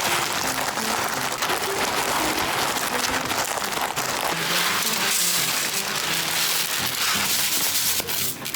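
Dry colored rice being poured and rustling in a plastic bin, a steady granular hiss, under light background music.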